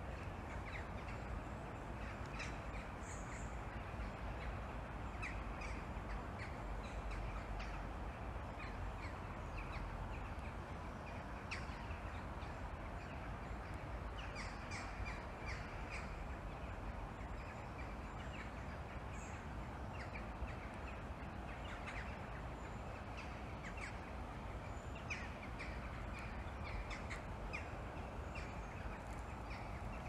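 Distant morning birdsong: many birds giving short, scattered calls over a steady low background rumble of outdoor ambience.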